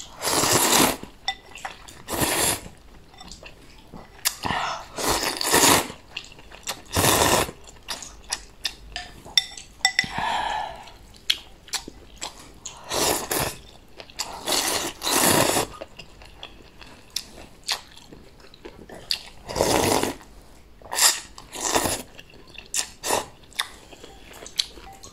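A person slurping rice noodles from a bowl: a run of loud, noisy slurps every few seconds, with chewing and small chopstick clicks against the ceramic bowl between them.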